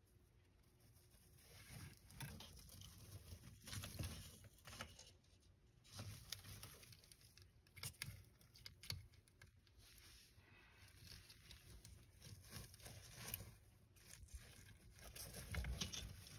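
Faint irregular scratching, clicking and rustling from a savanna monitor scrabbling on its bark-chip substrate as it tugs at a hornworm held in feeding tongs.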